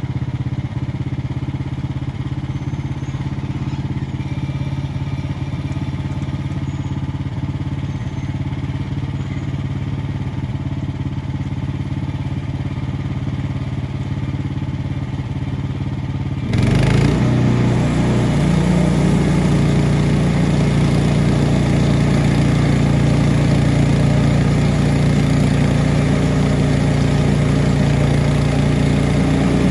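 Small gas engine of a Frontier OS23 bandsaw sawmill running steadily; a bit over halfway through it jumps up to a louder, higher note after a brief burst of noise and holds there.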